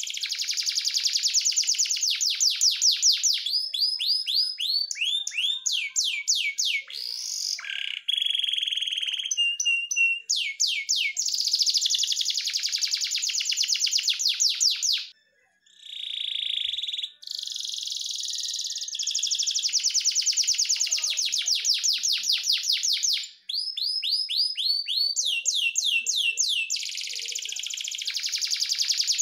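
Canary singing a long song of very rapid trills and rolls, phrase after phrase, with a short break about fifteen seconds in.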